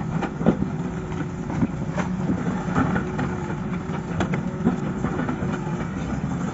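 Tracked hydraulic excavator's diesel engine running steadily, a dense low drone with a thin steady tone over it, broken by scattered sharp knocks and clatter as the machine works the rocky cut.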